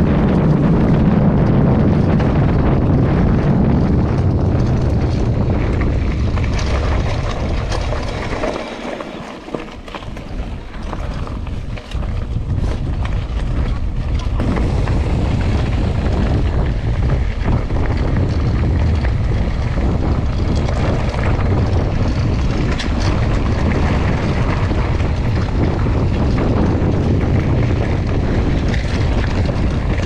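Wind buffeting the microphone of a camera carried on a moving mountain bike: a loud, steady low rumble. It falls away for a few seconds about a third of the way in, then picks up again.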